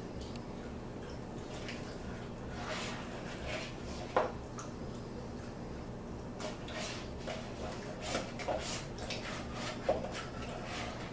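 A spoon scraping and tapping in an ice cream carton as soft ice cream is scooped out and dropped into a cake pan: scattered scrapes and clicks, the sharpest about four seconds in and a cluster near the end, over a steady low hum.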